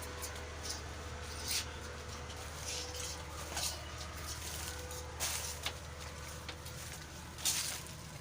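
Goat kids moving about and tugging at grass fodder: scattered short rustles and taps, about five louder ones, over a steady low hum.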